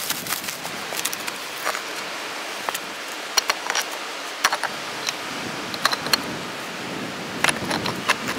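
Flat rock slabs being set in place against one another, giving a scatter of short, sharp stone-on-stone knocks over a steady background hiss.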